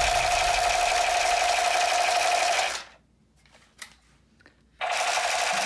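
AK-47-style toy rifle firing its electronic rapid-fire machine-gun sound effect, a steady rattle. It cuts off abruptly about halfway through, leaving near silence with one faint click, then starts again near the end.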